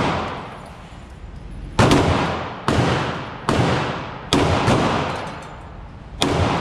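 Pistol shots fired at a deliberate pace, about six in a row, most spaced a little under a second apart, each followed by a long echoing tail.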